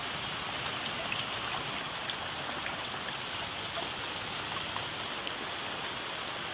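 Steady rain falling on grass and garden foliage: an even hiss with a few faint drop ticks scattered through it.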